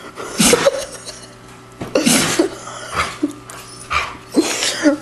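A small dog sneezing over and over, sharp sneezes coming about once a second.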